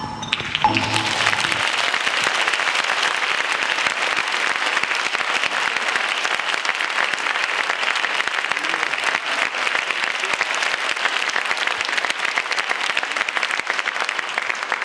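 Audience applauding steadily, taking over as the last notes of the music die away in the first second.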